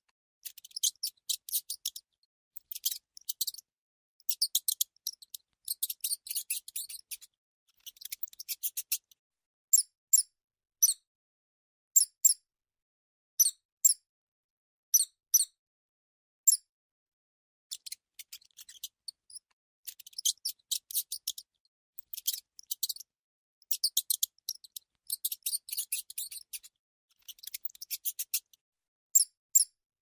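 Mouse squeaks, high-pitched, coming in quick chattering clusters with short silences between. Through the middle stretch they turn into single sharper chirps about a second apart, then the rapid clusters return.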